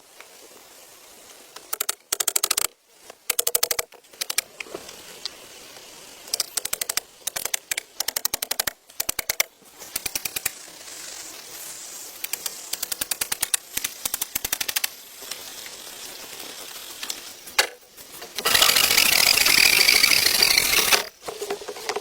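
Rapid runs of sharp knocks or clicks, many a second, coming in bursts with short pauses between them, then a loud rasping noise lasting about two and a half seconds near the end.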